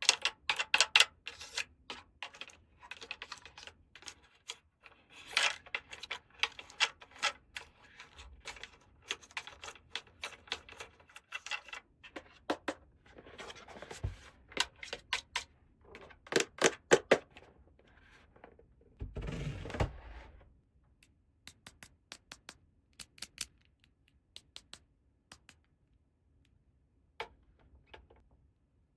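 Small plastic toy pieces being handled and set down: quick clicks and taps, a stretch of soft scraping, and a deeper rub about two-thirds of the way in, thinning out to a few light clicks near the end.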